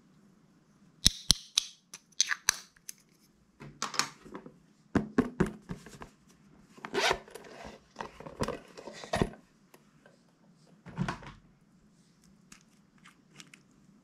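Slime being squished and stretched by hand, giving irregular sticky clicks, pops and short squelches. They start about a second in, die away around eleven seconds, and leave a few faint clicks near the end.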